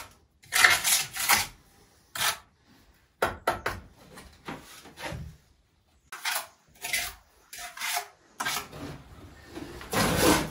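Bricklayer's trowel scraping and tapping against bricks and mortar while a course of upright soldier bricks is set and straightened, in short irregular scrapes with brief pauses.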